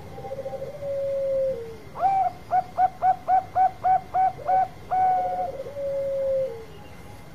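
Zebra dove (Bangkok-strain perkutut) singing its long song. It opens with a rolling trill that settles into a held note and drops in pitch, then about ten short, clipped coos at about four a second, then a longer note and the rolling trill and falling held note again.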